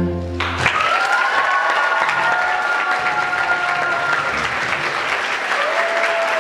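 The song's final chord of singing and guitar cuts off about half a second in. The audience applauds right after it, with a long held call over the clapping and a shorter one near the end.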